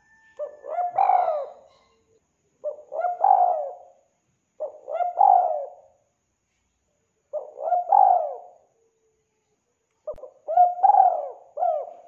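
Spotted dove cooing: five coo phrases about two to three seconds apart, each a short note followed by a longer rolling coo, the last with an extra short note at its end.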